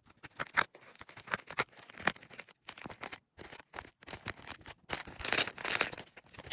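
Packaging being handled and opened: irregular rustling, small taps and scraping, with a denser burst of rustling about five seconds in.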